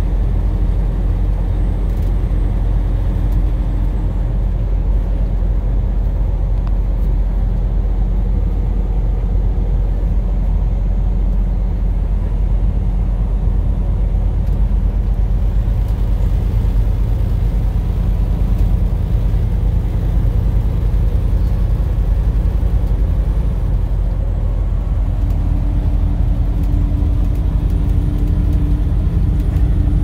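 Steady low rumble of a moving vehicle heard from inside the cab: tyres on the highway and engine running at cruising speed. A faint steady hum fades a few seconds in and comes back near the end.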